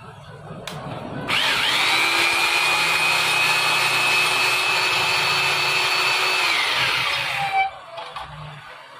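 Electric power tool motor spinning up about a second in, running at a steady high whine for about five seconds, then winding down and stopping near the end.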